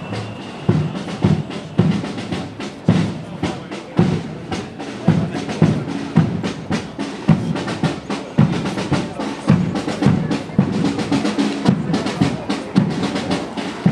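Marching band drums playing a steady march beat: bass drum strokes on the beat with snare drum rolls and strokes between them.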